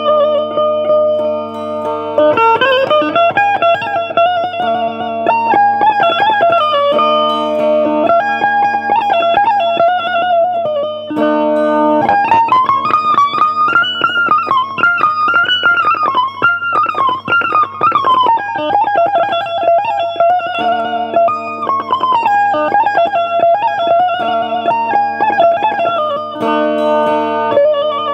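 Balochi benju, a keyed zither, playing a fast, rapidly picked, ornamented melody over steady drone strings. The melody climbs higher about twelve seconds in and settles back down near twenty seconds.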